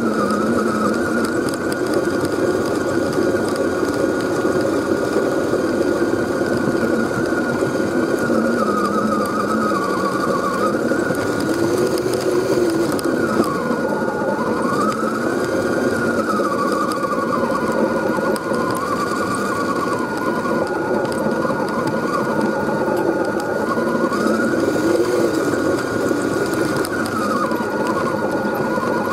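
Electric drive motor and gearbox of an Axial SCX10 RC scale crawler whining, its pitch rising and falling over a few seconds at a time as the throttle changes, with a steady high tone underneath.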